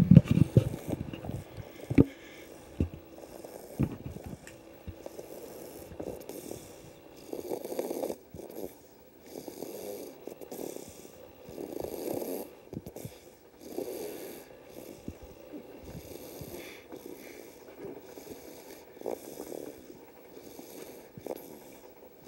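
Snoring, a noisy breath about every two seconds, with a few sharp clicks in the first four seconds.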